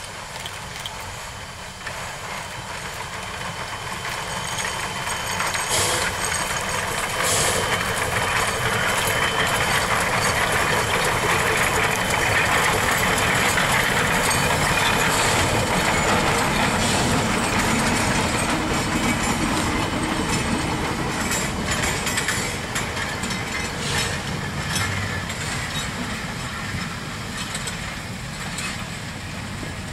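Shay geared steam locomotive working past with a short train, growing louder to a peak about halfway through as it goes by, then its cars and caboose rolling past on the rails with scattered clicks from the wheels, fading toward the end.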